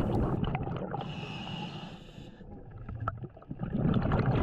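Scuba diver breathing underwater through a regulator: a low bubbling gurgle of exhaled bubbles, then an inhaled breath hissing through the regulator for about a second, and a single click near the end.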